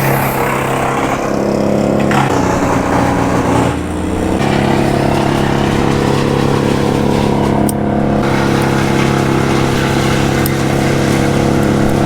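Chainsaw running at high speed through a cut, its pitch shifting a few times.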